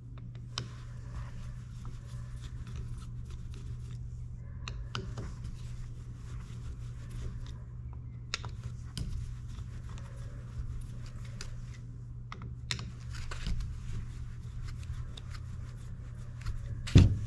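Small clicks and scrapes of a screwdriver and hands working on a Suzuki Bandit 1200's vacuum fuel petcock, taking the diaphragm cover screws out, over a steady low hum. One louder knock comes near the end.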